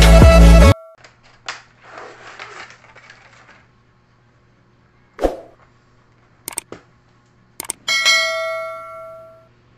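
Music cuts off early, then faint rustling of cardboard and plastic packaging and a single knock as a vlogging kit is unpacked. Near the end come a few sharp click sound effects and a subscribe-button bell chime that rings and slowly fades.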